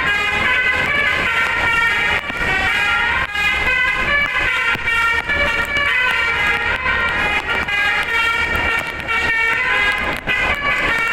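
Indonesian bus telolet horn with a DAV module playing a melody, one stepped note after another without pause, over a low engine rumble.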